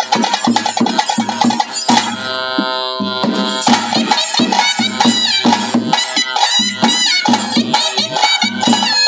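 Live traditional ritual music for a Bhuta Kola dance: fast, even drumming. About two seconds in, the drums drop out while a reed wind instrument holds one long note, then it plays a wavering, bending melody over the drumming.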